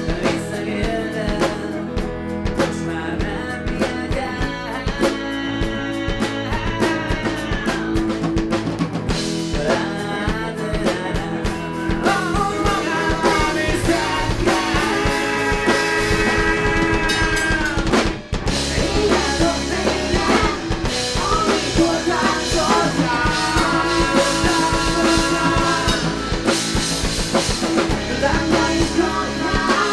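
A rock band playing live: drum kit, guitars and bass under a held, wavering melodic line. The music gets fuller and louder part way through, breaks off for a moment, then comes straight back in at full volume.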